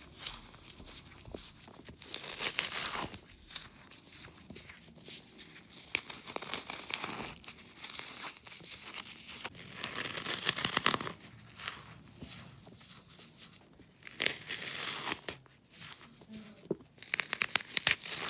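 Wet floral foam being crushed and broken apart, crunching and crackling in irregular bursts of small, sharp snaps.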